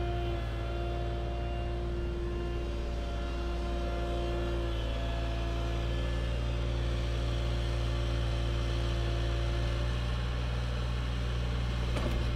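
Compact excavator's diesel engine running steadily under load as the arm lifts and swings a stump, a low drone with a steady whine on top. A couple of brief knocks near the end.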